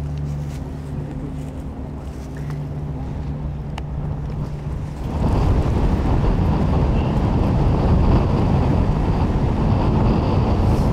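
Strong mountain wind buffeting the microphone, with a low steady hum under it at first; about five seconds in the wind gusts much harder into a loud, rough rumble that lasts to the end.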